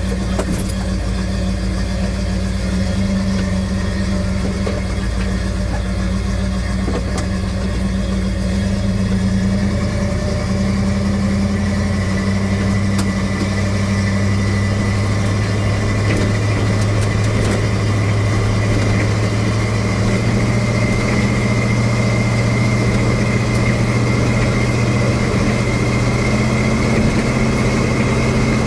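Car engine running steadily as the car drives slowly along a road, its note stepping up a little about ten seconds in and again later as it picks up speed.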